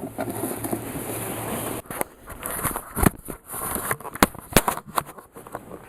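Handling noise close to the microphone: a steady rustle for about the first two seconds, then a string of irregular sharp clicks and knocks as things are picked up and moved.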